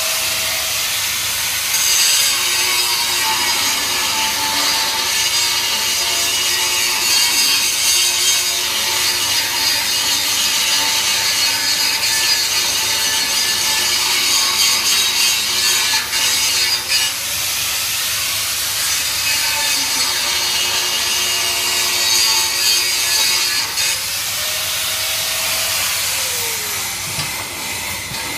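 Handheld electric angle grinder grinding steel, its motor whine rising and dipping as the disc is pressed into the work. Near the end it is switched off and the whine falls as the disc spins down.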